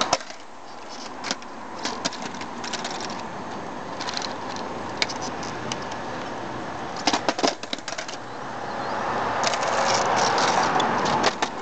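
Skateboard clattering on asphalt during kickflip attempts: sharp clicks and knocks of the tail popping and the wooden deck and wheels landing, scattered, with a quick cluster about seven seconds in and more near the end. A rushing noise swells over the last few seconds.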